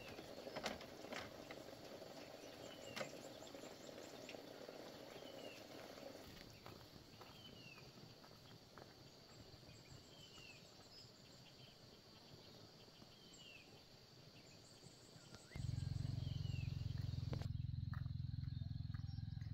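Rural outdoor ambience: a bird repeats a short falling chirp about once a second over a steady high insect drone. A few knocks near the start are footsteps on a wooden ladder. Late on, a low steady rumble starts suddenly.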